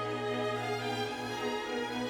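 Background music with sustained bowed strings.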